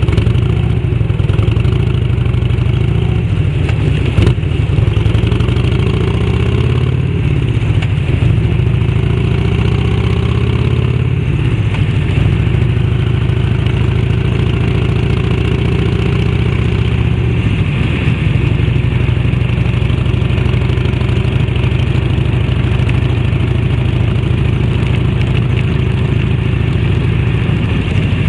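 1991 Harley-Davidson Electra Glide's 1340 cc Evolution V-twin, exhausting through an aftermarket fish-tail silencer, running under way. It picks up speed with the pitch rising in steps over the first dozen seconds, then holds a steady cruise.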